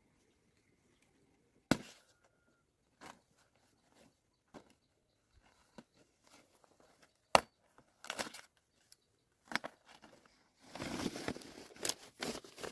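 Handling noise: scattered sharp snaps and clicks, the loudest about two seconds in and again about seven seconds in, then a longer stretch of rustling near the end.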